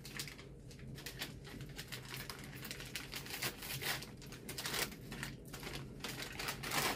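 Gift wrapping paper crinkling and rustling as a small present is unwrapped by hand, in a run of quick crackles that grows loudest near the end.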